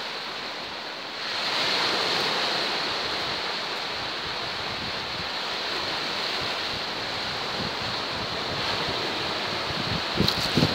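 Small sea waves breaking and washing in at the shoreline, a steady hiss of surf that swells about a second in.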